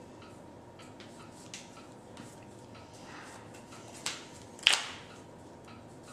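Light clicks and taps of Magic: The Gathering cards being handled and fidgeted with in players' hands, a few faint ones early and two sharper clicks about four and four and a half seconds in, the second the loudest.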